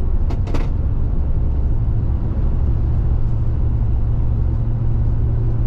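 Steady low rumble of a car's engine and tyres on the road heard from inside the moving car, with a steady low hum that grows stronger about two seconds in. Two short clicks about half a second in.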